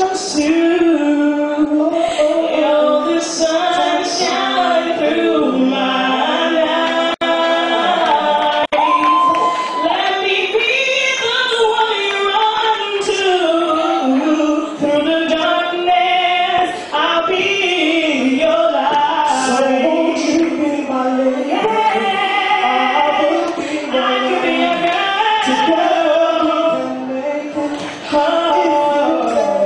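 A woman singing live into a handheld microphone, amplified through a PA.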